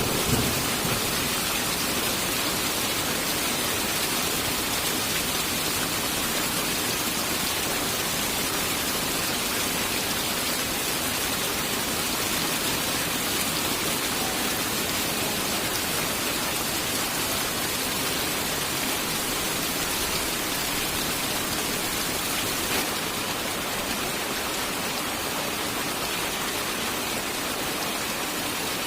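Steady heavy rain falling, an even hiss. The low rumble of a thunderclap dies away in the first second.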